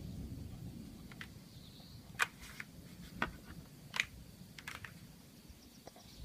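Outdoor ambience: a low rumble, strongest at the start, with a handful of sharp clicks in the middle and a faint steady high tone.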